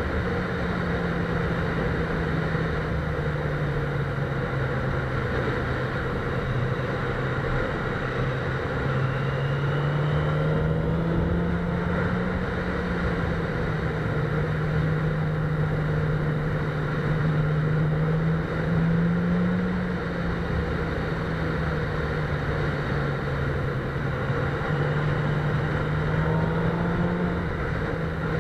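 Sport motorcycle engine running at steady moderate revs while riding. Its note rises and falls gently a few times with the throttle, under continuous wind and road noise.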